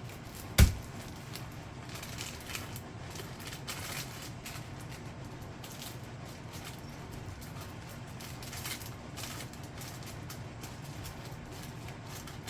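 A single sharp thump about half a second in, then faint scattered rustling and small clicks of packaging being handled over a steady low hum.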